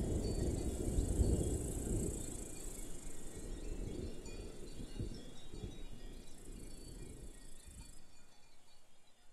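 Outdoor ambience fading out: a low rumble dies away under a steady high insect chirring, with a few faint soft thumps.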